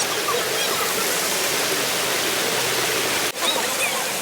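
Steady rushing noise with a brief dropout a little past three seconds in.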